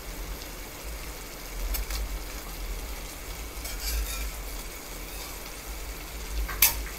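Metal spatula stirring fried prawns into a simmering masala gravy in a pan, with faint sizzling and one sharp knock near the end.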